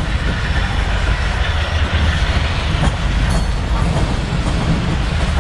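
Freight train hopper cars rolling past: a steady rumble of steel wheels on the rails.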